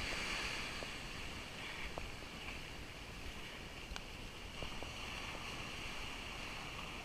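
Steady beach ambience: gentle sea wash and light wind on the microphone, with a few faint ticks scattered through it.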